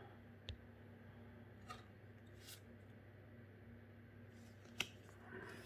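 Near silence broken by four faint clicks of Magic: The Gathering cards being flipped one by one through a stack held in the hand, the sharpest near the end.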